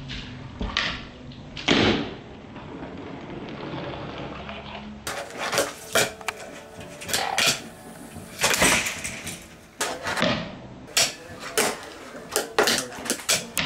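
Fingerboard on a hard tabletop: a series of sharp clacks and knocks as the tiny board's tail pops and it lands and rolls. The clacks come thick and irregular from about five seconds in, after a few scattered clicks over a faint steady hum.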